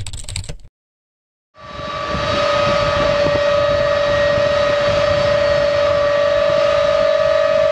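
C-5B Galaxy's TF39 turbofan engines running as the jet taxis: a loud steady rush with a strong, steady high whine, a second whine an octave above it. It fades in about a second and a half in.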